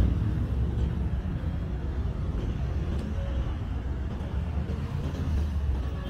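City street traffic: a steady low rumble of passing vehicles, with a faint click about three seconds in.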